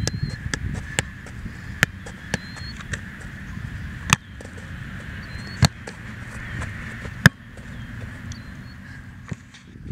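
A soccer ball being juggled: the ball's touches off the foot and knee give sharp, irregularly spaced thumps, about seven strong ones, over a steady low rumble.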